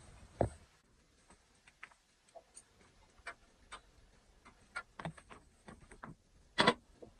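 Open wood fire crackling, with irregular light clicks and pops, and two louder knocks, one just after the start and one near the end.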